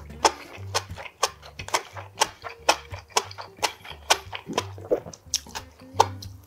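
Background music with a steady beat of about two clicks a second and a bass line, with chewing of grilled pork ribs mixed in.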